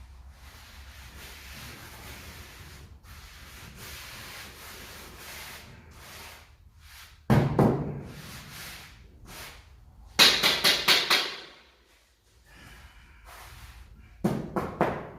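Tools scraping and rubbing across a fresh mortar floor bed as it is screeded to a drainage slope, broken three times by bursts of quick, sharp knocks; the longest burst has about six strikes in a second.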